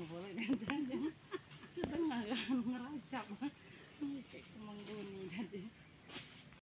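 Insects droning in a steady high-pitched whine, with people talking indistinctly under it. All sound cuts off abruptly near the end.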